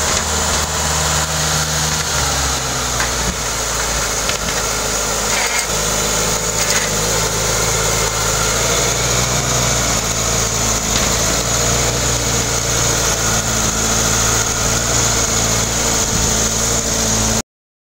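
Suzuki Samurai engine running steadily at low speed while the 4x4 pushes a snow plow. Its note changes about two seconds in, and the sound cuts off abruptly near the end.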